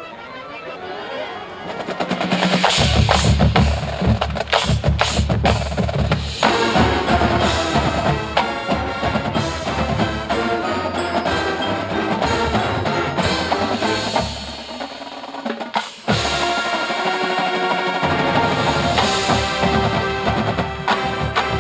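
Marching band playing: a drumline with heavy low drum hits, and front-ensemble mallet percussion such as bells and glockenspiel over sustained pitched chords. The drums come in loud about three seconds in. The music thins briefly about fifteen seconds in, then comes back with a sudden loud entry.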